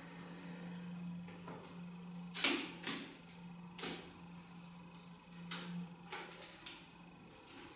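Several short sharp clicks from a bayan (chromatic button accordion) being handled while it is not played, the loudest two about half a second apart near the middle, over a faint steady low hum.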